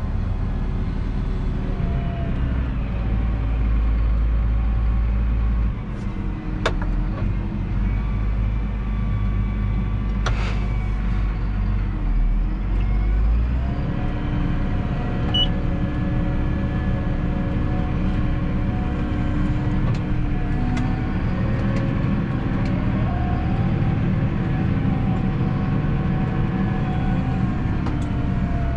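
Massey Ferguson 7718S tractor's six-cylinder diesel engine running under way, heard from inside the cab. A deep low rumble eases off about halfway through and the engine's hum shifts a little in pitch, with a few sharp clicks along the way.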